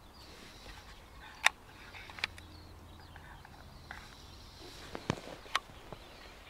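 Quiet outdoor background with a few sharp clicks, the loudest about a second and a half in, then two more about five seconds in.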